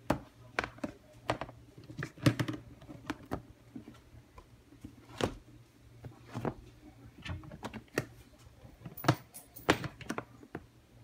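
Clear plastic Sterilite storage tub lids being handled and pressed shut by hand: a string of irregular plastic clicks and knocks.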